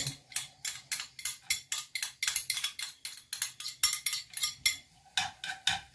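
A small plastic board scraping and tapping on the rim of a non-stick frying pan as chopped onion and garlic are knocked off it into the oil: a quick, uneven run of sharp clicks, several a second.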